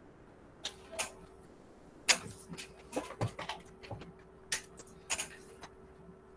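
A scatter of short, irregular clicks and light knocks from handling at the desk, the sharpest about two seconds in, with a cluster around three seconds, over a faint steady electrical hum.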